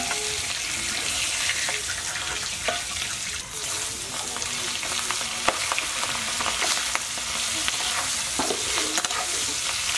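Giant freshwater prawns sizzling steadily in hot mustard oil in an aluminium kadai, with a few sharp ticks and scrapes of a metal spatula against the pan as they are turned.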